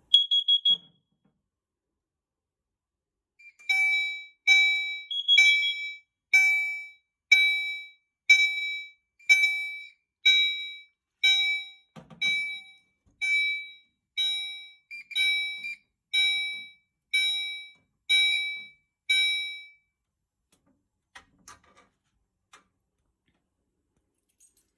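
Fire alarm horns on a Potter PFC-4064 system sounding a carbon monoxide alarm test: a pulsed signal of short, evenly spaced blasts, about one a second, that starts a few seconds in and stops a little before the end. A brief high beep comes just before it, and a single thump falls midway.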